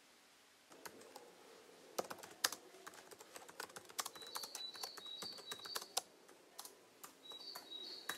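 Fingers typing on a laptop keyboard, an irregular patter of light key clicks that starts about a second in. Two brief runs of short high chirps sound behind it, one in the middle and one near the end.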